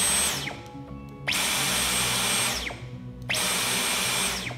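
Dyson V11 cordless stick vacuum's motor in Eco mode, switched on three times by its trigger: a brief burst at the start, then two bursts of just over a second each. Each burst ends with a falling whine as the motor spins down.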